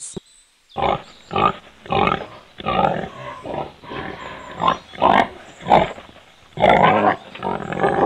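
Wild boar grunting repeatedly: about a dozen short, rough grunts at irregular intervals, roughly two a second, starting about a second in.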